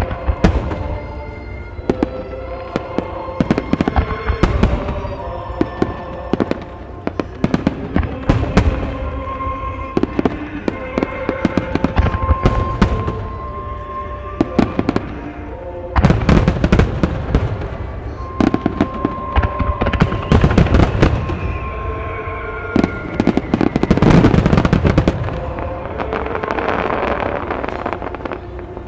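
Japanese starmine fireworks barrage: shells launching and bursting in a rapid string of sharp bangs. The bursts come thickest about halfway through and again in a heavy finale a few seconds before the end.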